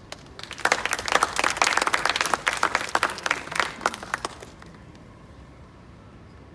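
Audience applauding: a burst of clapping that starts about half a second in and dies away after about four seconds.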